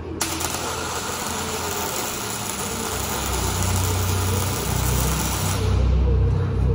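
MIG welding arc on steel, crackling and hissing steadily, then cutting off about five and a half seconds in. A low machine rumble builds underneath from about halfway and is loudest near the end.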